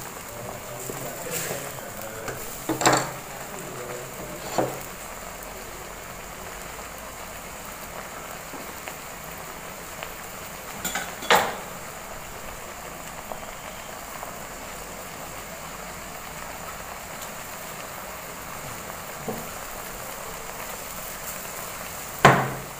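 Broth simmering in a wok, a steady bubbling hiss, with a few short knocks of a wooden spatula against the wok, the loudest near the end.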